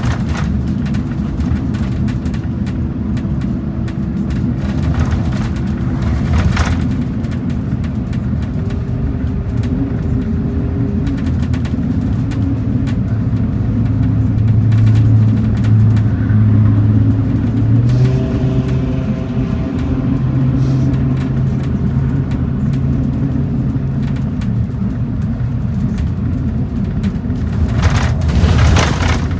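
Transit bus in motion: a steady low engine drone with road noise, the engine's pitch stepping up and down a few times. Brief louder rushes of noise come about six seconds in and again near the end.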